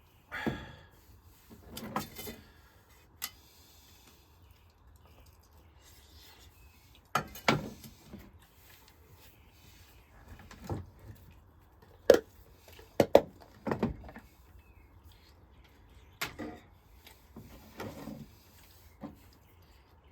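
Irregular wooden knocks and clunks, about ten in all, the loudest bunched around the middle, as pieces of firewood are handled and set down against one another.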